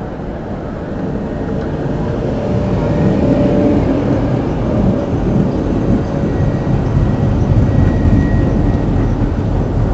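Two-car Tatra KT4D tram rolling past close by on street tracks: a heavy low rumble of wheels on rail that grows louder over the first few seconds as it draws level, with a faint steady whine above it.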